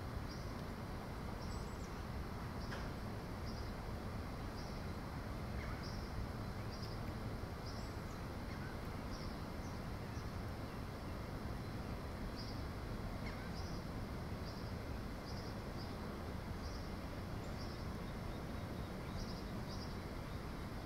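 Outdoor ambience: a steady low rumble, with a short high chirp repeating about once a second, sometimes in pairs.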